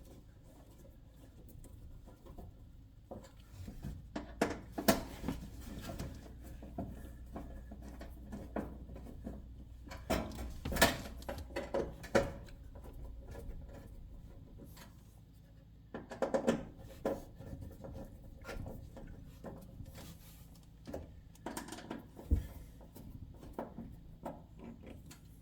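Scattered clicks, taps and short scrapes of hand work on an electric range's control panel: screws being put in and tightened, and the panel being handled. There are busier clusters of sharp clicks about four, ten and sixteen seconds in.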